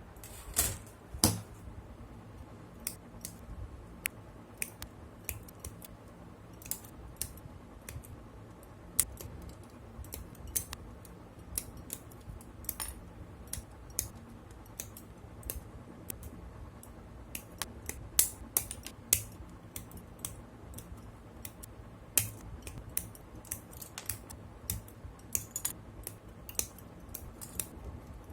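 Irregular sharp plastic clicks and snaps from the parts of a Jupitive Gundam plastic model kit being worked by hand, with two louder snaps about a second in.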